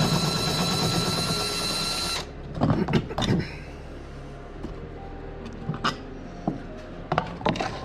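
Cordless drill motor spinning with a high whine that holds steady and cuts off suddenly about two seconds in, followed by a few clattering knocks and scattered light metal clicks, as bolts of an old trolling motor mount are taken out.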